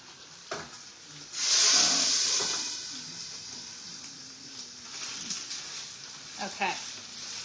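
Chicken cutlets frying in a pan of hot oil: a sudden loud burst of sizzling about a second in, as if something has just gone into the oil, easing into a steady sizzle.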